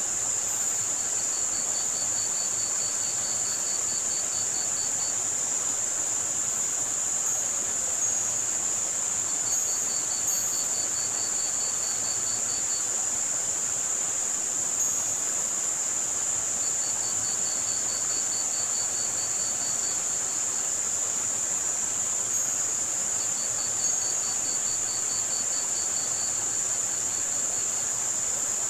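Tinnitus-masking mix of steady high-pitched white-noise hiss and cricket chirping. The crickets come in trains of about five pulses a second, each train lasting three to four seconds and recurring every six or seven seconds, over a soft wash of running lake water.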